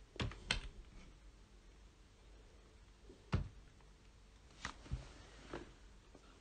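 A few isolated light clicks spread out over faint room hiss, the loudest a little over three seconds in.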